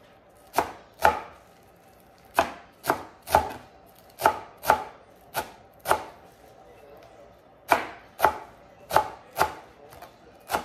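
Chef's knife chopping leafy green herbs on a plastic cutting board: about fifteen sharp knocks of the blade on the board at an uneven pace, often in quick pairs, with a short pause past the middle.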